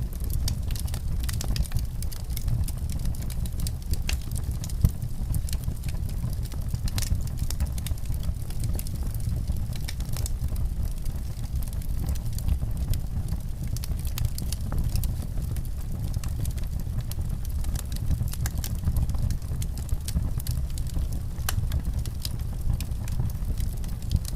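Wood fire in a fireplace crackling: many small, sharp pops and snaps scattered irregularly over a steady low rumble.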